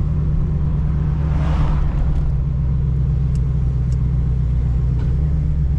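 Steady low drone of a Buick Regal's engine and road noise, heard from inside the car while driving, with a brief rush of noise about a second and a half in.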